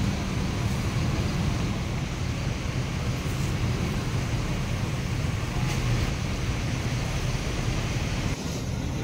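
Diesel intercity coach engine running low and steady as the coach pulls slowly away, over general traffic noise.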